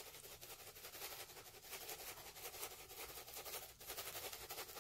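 Faint, soft ticking and rustling of chili flakes being shaken from a small container over a bowl of noodles.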